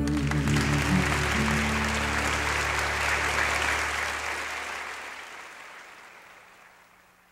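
Audience applause over the song's final sustained chord. The chord dies away about halfway through, and the clapping fades out gradually to silence.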